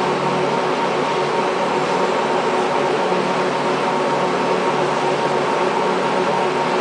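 Steady mechanical hum with a few held tones, unchanging throughout.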